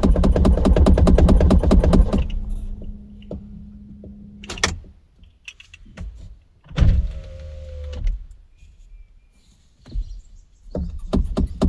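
Car engine cranking on the starter without catching, stopping about two seconds in, followed by a steady hum and a few clicks. A short whirring burst with a falling tone comes in the middle, and the cranking starts again near the end, the engine still failing to start.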